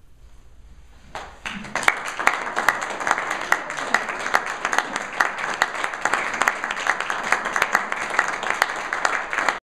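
Small audience applauding, the claps starting about a second in and cutting off suddenly near the end.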